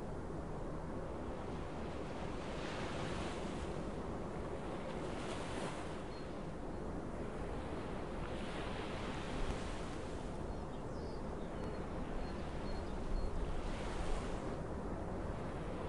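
Surf of the Baltic Sea heard from the coastal forest: a steady rush that swells and eases every two to three seconds.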